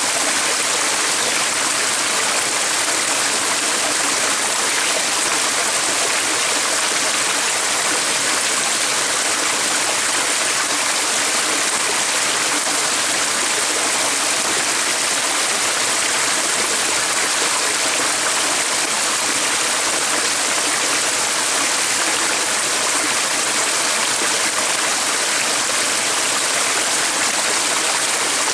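Stream water running, a steady, even rushing that does not change.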